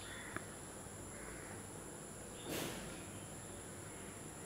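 Quiet background during a pause: a faint steady high-pitched whine, a small click about half a second in, and a short soft rush of noise about two and a half seconds in.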